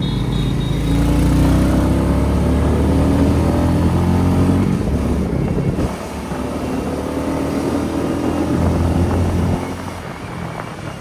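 Royal Enfield Meteor 350's single-cylinder engine under way, its note rising as the motorcycle accelerates over the first few seconds. It eases off about six seconds in and again near the end.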